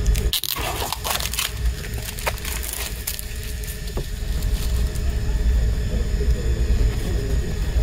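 Handling of a plastic-wrapped CD box set: crinkling plastic in the first second and a half, then a couple of light clicks as the box is handled, over a steady low rumble.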